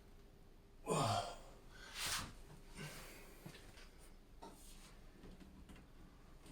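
A person's short vocal sound falling in pitch about a second in, then a sharp breath out about a second later, followed by a few faint breaths and small noises.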